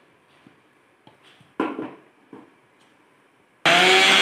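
Steel jar and lid of an electric mixer grinder knocking and clinking as it is closed and set on the base, with two louder knocks midway. Near the end the grinder motor starts suddenly and runs loud and steady with a whine.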